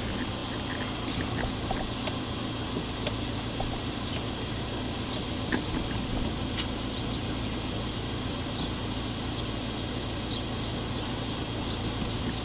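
Engine idling steadily, with a few faint clicks.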